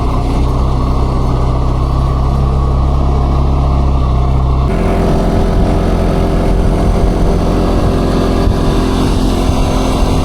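A motor vehicle engine running steadily. About halfway through, the sound changes abruptly to a different, fuller engine note.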